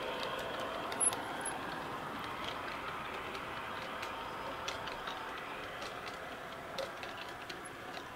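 G-scale model train coaches rolling over garden-railway track: a steady rolling rumble that slowly fades as the train moves away, with scattered light clicks from the wheels.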